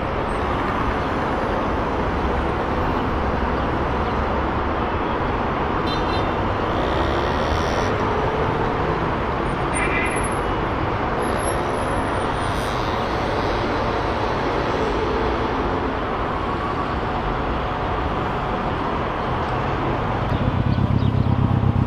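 Steady road traffic: many cars and vans driving along a city road, a continuous hum of engines and tyres.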